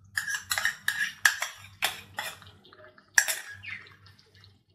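Metal spoon scraping and tapping against a bowl as cream is scooped out into a pan: a run of quick clinks and scrapes, with a louder clink about three seconds in.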